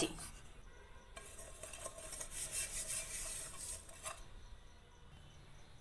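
Fingers rubbing oil around the inside of an aluminium cake pan to grease it: a faint, scratchy rubbing on the metal that starts about a second in and stops about four seconds in.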